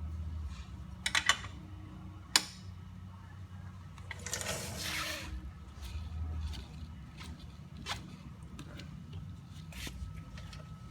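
Hands-on work at a trike's rear axle and belt pulley: a few sharp metallic clicks and knocks, then a rough scraping rub lasting about a second, with lighter ticks afterwards over a steady low hum.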